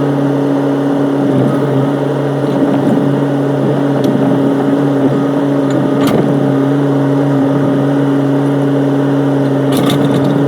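Excavator engine running steadily at a constant speed, with a sharp knock about six seconds in and a brief clatter of knocks near the end.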